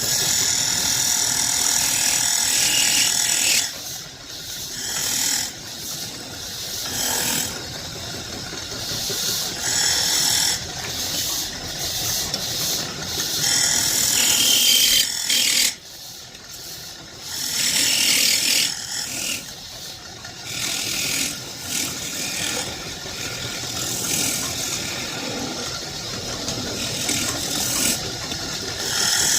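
Wood being shaped with a tool: a rough, rasping grinding noise that swells and eases every few seconds, breaking off briefly twice.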